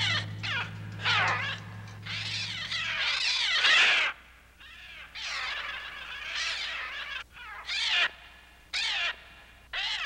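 Screeching bird cries, many calls sweeping up and down in pitch and coming in waves, over a low steady hum that stops about three seconds in.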